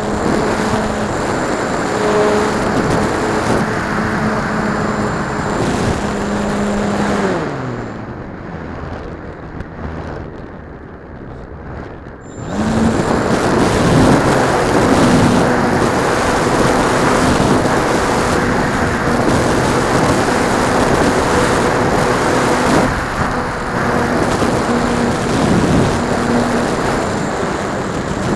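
Turnigy Park 450 brushless electric motor spinning an APC 9x6E propeller on a HobbyZone Super Cub RC plane, a steady whine heard through wind noise on the onboard microphone. About seven seconds in the whine drops away in pitch as the throttle is cut, leaving mostly wind for about five seconds, then the motor comes back up sharply and runs on at high throttle with a few brief dips in pitch.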